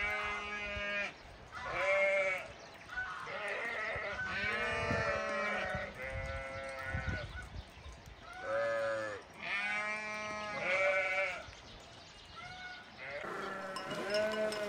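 A flock of sheep bleating, one long call after another, many of them overlapping.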